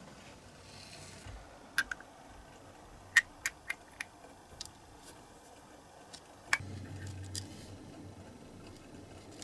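Scattered small sharp clicks and taps, about nine in all, from small glass paint jars and hobby tools being handled on a workbench, with a faint low hum coming in about two-thirds of the way through.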